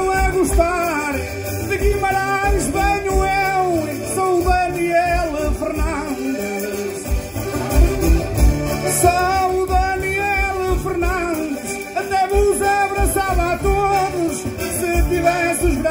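Instrumental interlude of Portuguese desgarrada folk music: an accordion plays the melody over a strummed cavaquinho and a steady thumping bass beat.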